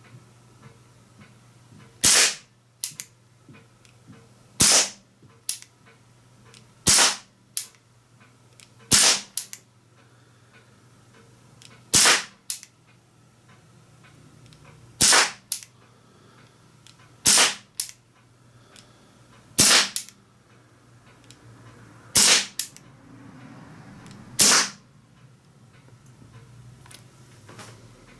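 Swiss Arms P-92 CO2 BB air pistol firing ten shots at an uneven pace, two to three seconds apart. Each shot is a sharp crack followed a moment later by a much fainter click.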